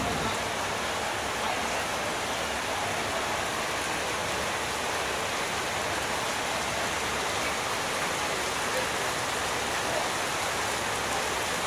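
Steady rain falling, an even hiss without separate drops or changes.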